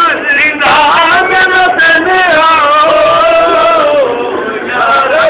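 A man's voice chanting in long, drawn-out notes that bend up and down, with short pauses for breath near the start and near the end. The sound is dull, with no high end.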